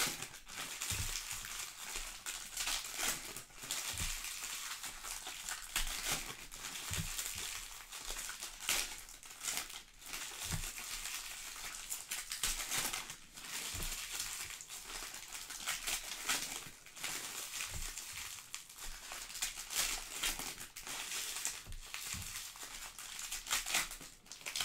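Foil wrappers of Panini Select trading-card packs crinkling as the packs are handled and ripped open, in irregular bursts.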